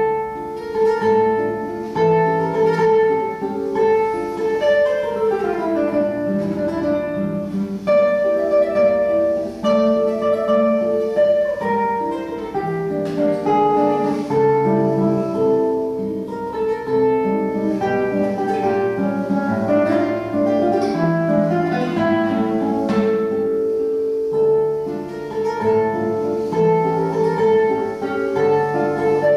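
Classical guitar played solo, fingerpicked: a run of plucked notes and chords that comes in loudly and suddenly at the start and carries on without a break.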